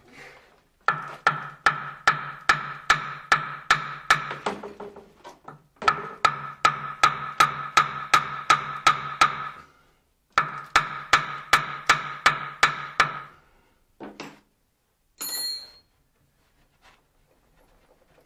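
A hammer striking metal, about three blows a second, in three runs of a few seconds each, with a ringing tone carrying under the blows. A short high squeak follows near the end.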